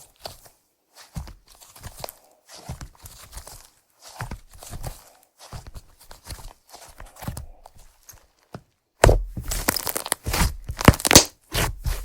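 Slime being squished and stretched by hand, making soft irregular sticky sounds. About nine seconds in it turns to a louder run of crackling, crunching pops.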